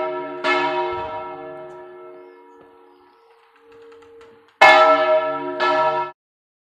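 Church bells being swung full circle in a Spanish volteo, each stroke of the clapper ringing on and slowly fading: one stroke about half a second in, then two close together near the end. The sound cuts off suddenly just before the end.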